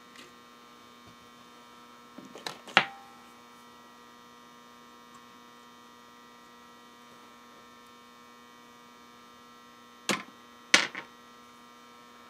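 Steady electrical hum, with a few sharp clicks and knocks of wires and parts being handled on the motor's wooden base: a pair a couple of seconds in and two more near the end.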